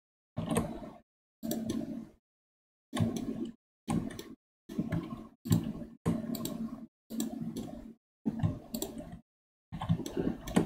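About ten short bursts of clicking and handling noise from working a computer mouse and keyboard, each cutting off to dead silence in between, as a noise-gated microphone does.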